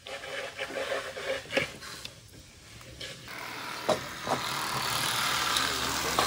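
A few knocks and rattles, then from about three seconds in a steady buzz from a corded electric fillet knife running as it cuts into a catfish behind the head.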